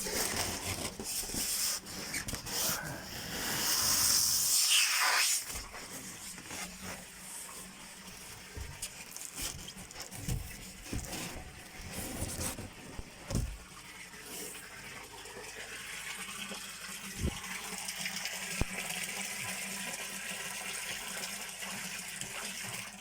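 Water splashing and trickling in a koi tank, with scattered knocks and handling noises. It is loudest about four seconds in, then settles to a steady, quieter rush.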